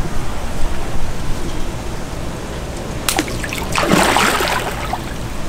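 Fish scraps dropped into the canal, then a fish striking at them at the surface: a sharp splash about three seconds in, followed by a bigger splash just before four seconds.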